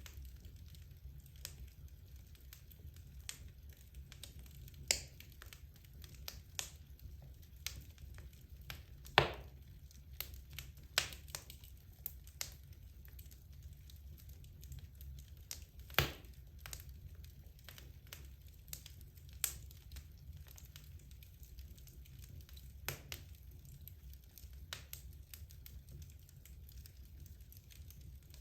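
Wood logs burning in a fireplace, crackling with irregular sharp pops of varying strength; the loudest snaps come about a third of the way in and just past halfway. A low steady rumble lies underneath.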